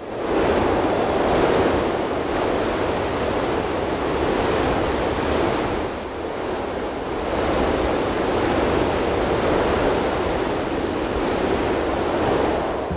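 Steady rushing noise, fading in at the start and dipping briefly about six seconds in.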